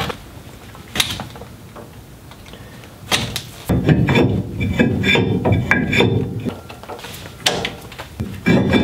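Clunks, clicks and metal scraping as a rear brake rotor is handled on the hub of a 2002 Chevy Silverado while its parking brake shoes are adjusted to just barely touch the rotor. There are single knocks about a second in, and denser scraping and clunking from about three seconds in to past six seconds.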